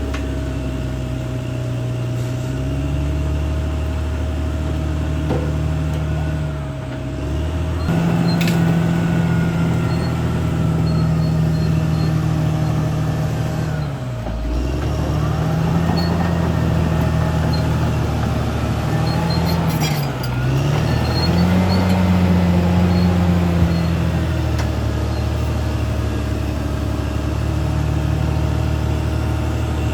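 A CAT D6R XL bulldozer's diesel engine working steadily, with a thin high whine alongside. The engine note rises about a quarter of the way in, then twice sags briefly and picks back up, the way a dozer's engine lugs down under a heavy push and recovers.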